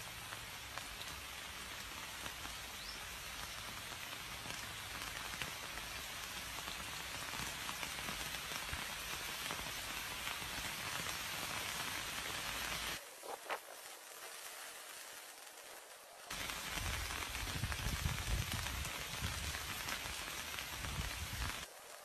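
Steady rain falling, an even hiss of raindrops. It cuts out abruptly for about three seconds past the middle, and when it returns a low rumble comes with it until just before the end.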